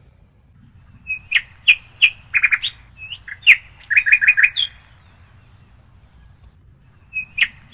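A songbird singing: a phrase of sharp, quick chirps and rapid stuttered notes lasting about three and a half seconds, a pause, then the song starting again near the end.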